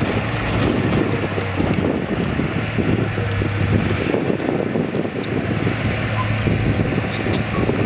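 Heavy diesel engine of earthmoving machinery running steadily under load, with a constant low hum and a rough chatter.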